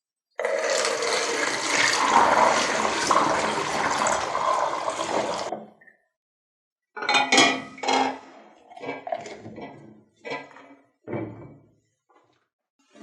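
Water rushing and splashing for about five seconds, stopping abruptly, followed by a string of separate clinks and knocks, like a metal object being set down and handled.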